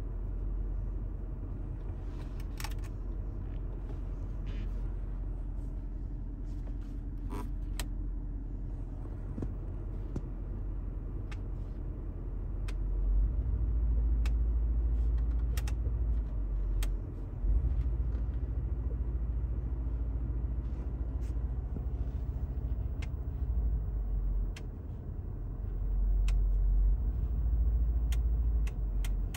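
Mercedes-AMG 5.5-litre twin-turbo V8 idling, a low rumble heard inside the cabin that swells louder for a few seconds twice. Faint scattered clicks over it.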